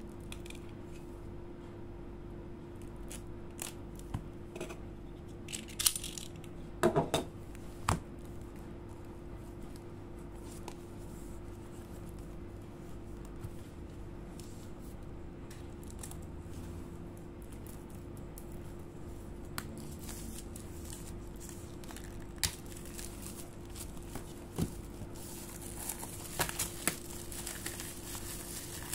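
Pages of a large glossy photobook being turned by hand: scattered paper flaps and crinkles, a cluster of sharp clicks about seven seconds in, and a longer swishing slide of paper near the end, over a faint steady hum.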